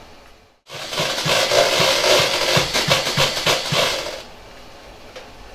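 Background music with a steady drum beat, lasting about three seconds and stopping abruptly.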